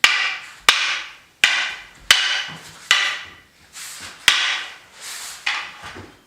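Walking canes clashing in a sparring drill: a run of sharp clacks, several loud and a few softer, about one to two a second, each ringing briefly.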